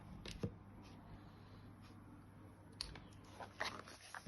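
A few faint, light clicks and taps of tarot cards being handled and gathered, scattered through a quiet stretch.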